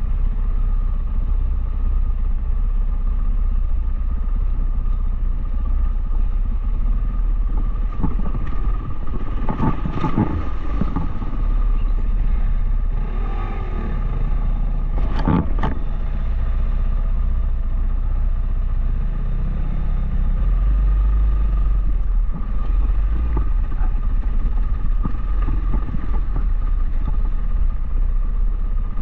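Dual sport motorcycle engine running steadily while riding a trail, with wind on the microphone. There are sharp knocks about ten seconds in and again about fifteen seconds in.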